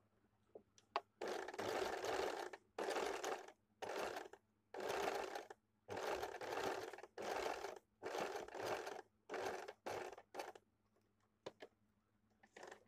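Domestic sewing machine stitching piping onto a blouse neckline. It runs in about a dozen short bursts of around a second each, stopping and starting with brief pauses, followed by a few light clicks near the end.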